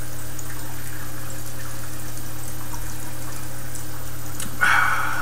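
Steady background hiss with a constant low hum, and a short rushing burst near the end.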